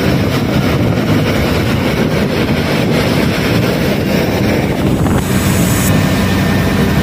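Steady engine and road noise of a moving bus, heard from inside its front cabin. A brief hiss joins in the high end about five seconds in and cuts off about a second later.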